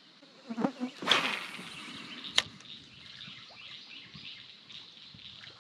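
A fishing rod being cast: a whoosh of rod and line about a second in that fades over a second or so, then a single sharp click.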